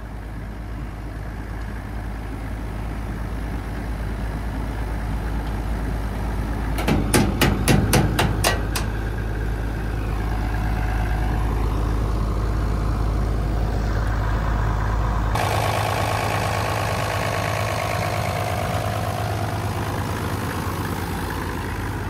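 An old Allis-Chalmers combine harvester's diesel engine running steadily. A quick run of about eight sharp knocks comes around seven to nine seconds in. About fifteen seconds in the deep hum drops away suddenly and a higher rushing noise takes over.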